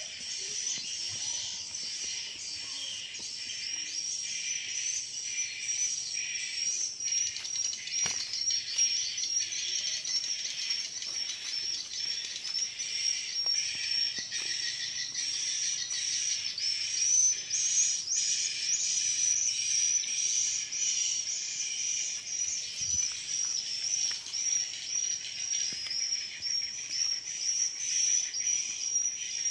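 Steady, high-pitched chorus of insects in tropical vegetation, shimmering without a break.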